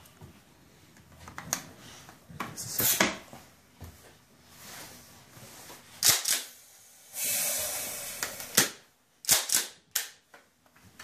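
Tokyo Marui M870 gas airsoft shotgun being handled, its action giving a series of sharp clacks. A hiss of gas lasting about a second comes around seven seconds in.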